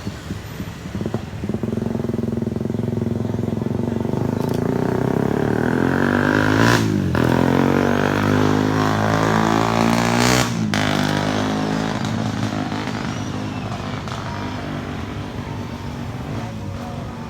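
A jet airliner's engines passing close by, building to their loudest about halfway through and then fading away, with a sweeping, shifting tone as it moves past. Two short sharp loud moments come about seven and ten and a half seconds in.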